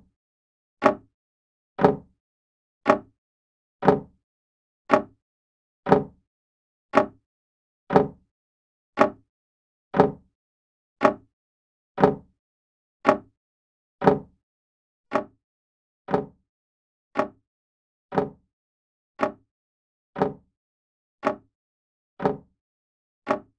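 Old grandfather clock ticking steadily, its pendulum escapement giving one sharp tick about every second.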